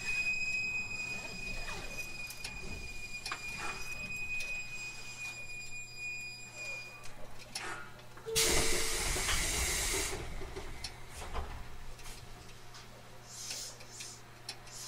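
JR Kyushu 813 series electric train: a steady high-pitched whine over a low hum, the whine stopping about seven seconds in, then a loud hiss of compressed air released from the train's air system about eight seconds in, lasting about two seconds.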